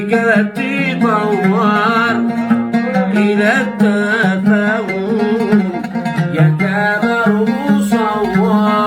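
A voice singing a wavering, ornamented melody over a plucked string instrument.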